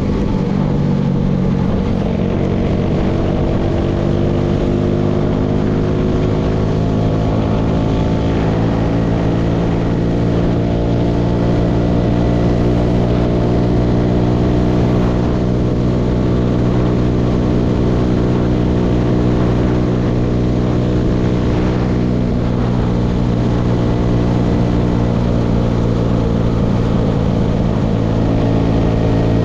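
Tractor engine running steadily under load while working a hay baler, its pitch shifting slightly in the first seconds and again about eight seconds in.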